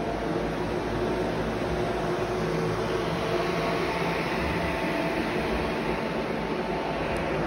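Carpet-drying air movers (blower fans) running with a steady whir and faint hum, growing a little hissier about halfway through.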